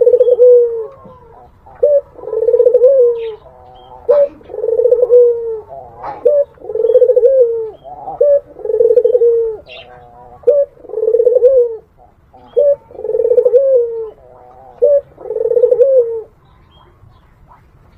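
Barbary (ringneck) dove cooing: a short note then a longer rolling coo, repeated about every two seconds, eight times, then stopping near the end. It is the wooing coo this bird is kept for.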